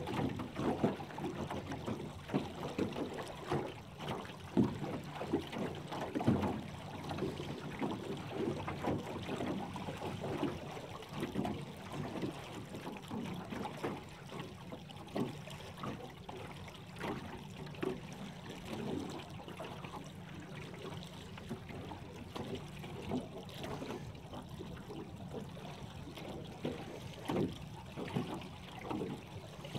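Water slapping and lapping against the hull of a moving aluminum boat in irregular splashes, over a small boat motor's steady low hum.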